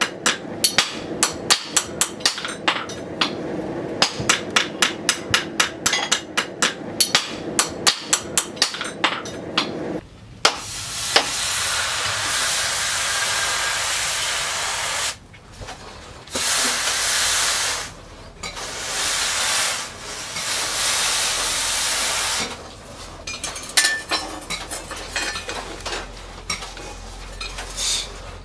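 Rapid hammer blows on metal, about three a second. About ten seconds in they give way to a hot steel knife blade being quenched in a water trough, hissing in several long bursts that start and stop as the blade goes in and out of the water.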